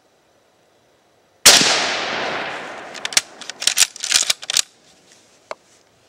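A Chatellerault-made 1895 Mosin-Nagant M91 rifle fires one loud 7.62x54R shot about a second and a half in, its report echoing away over more than a second. About three seconds in comes a quick run of sharp metallic clicks and clacks, typical of the bolt being worked to eject the case, with one more click near the end.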